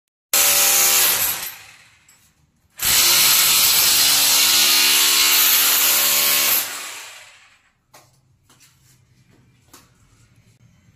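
Corded angle grinder run twice, a short burst and then a longer one of about four seconds, grinding into the porcelain base of a toilet bowl. Each time it spins down slowly after the trigger is released, and a few faint taps follow.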